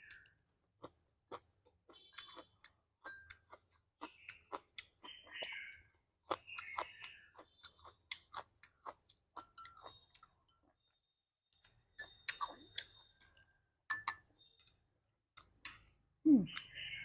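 Close-up mouth sounds of someone eating: wet chewing with many small clicks and smacks, and a few brief light clinks.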